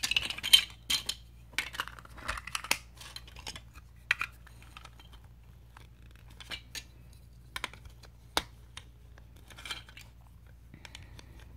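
Plastic Lego Duplo bricks clicking and clattering as they are picked up, handled and snapped together, a run of irregular sharp clicks that is busiest in the first few seconds and thins out to scattered single clicks.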